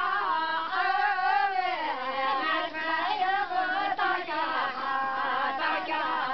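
A group of women singing a song together, with long held notes that bend slowly in pitch and short breaths between phrases.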